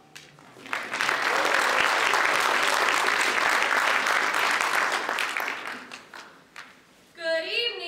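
Audience applause, starting about a second in and fading out after about five seconds.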